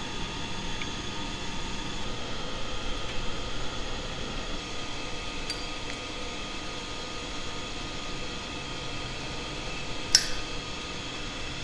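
Steady whir of the blower that feeds air to the propane glassworking torches, with a single sharp clink of glass tubing about ten seconds in.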